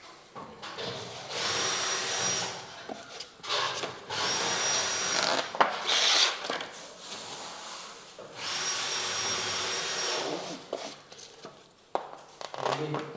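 Three long rubbing scrapes, about two seconds each, with a thin high whistle running through them, as joint tape is pressed and smoothed along a gypsum-board ceiling joint.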